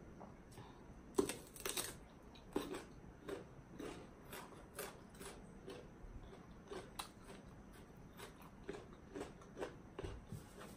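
A person chewing and crunching food: a faint, irregular run of small crunches and mouth clicks from eating papaya salad with raw vegetables.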